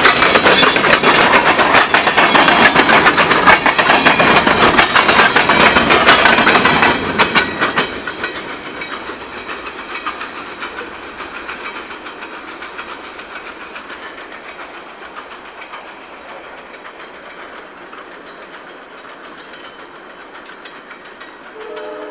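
Freight train covered hopper cars rolling past close by, the wheels rumbling and clicking sharply over the rail joints. About seven to eight seconds in the last car passes and the sound drops to a fading rumble as the train moves away. A train horn starts to sound right at the end.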